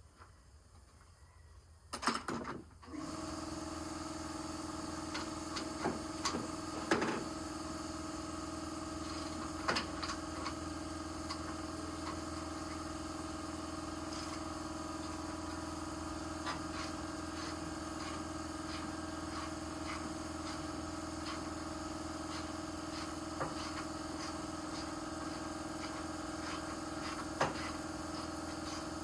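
A steady mechanical hum at a constant pitch starts about three seconds in and keeps running, with scattered metallic clicks and clinks from hand tools over it.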